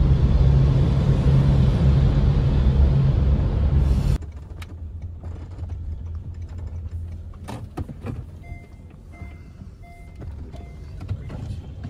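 Car cabin noise while driving, a loud steady low rumble of road and engine. About four seconds in it cuts to a much quieter cabin as the car reverses, and the parking sensor beeps about five times at an even pace.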